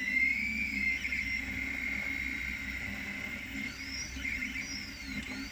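3D printer's stepper motors whining as the print head traces the outer wall at slow speed, the pitch sliding up and down as the head changes speed and direction. A steady low hum runs underneath.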